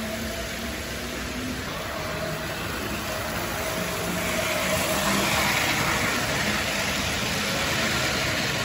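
Electric model trains running on a layout: a steady hum and whir of small motors with wheels rolling on track, growing louder about halfway through as a larger-scale model freight train rolls past close by.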